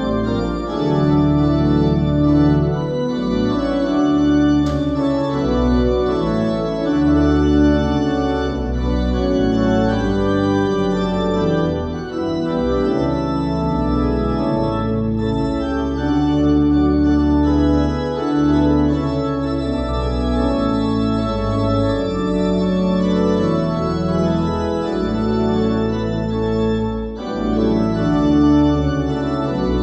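Church organ playing sustained chords that change every second or two over a deep bass line.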